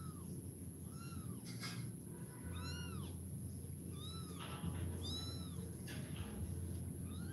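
Kitten meowing repeatedly: about four short, high-pitched meows, each rising and then falling in pitch, over a steady low hum.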